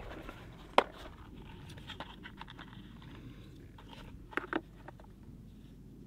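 Clicks and light rattling from a small clear plastic assortment box of heat-shrink tubing being opened and handled. One sharp snap about a second in, scattered small clicks after, and two quick clicks past the middle.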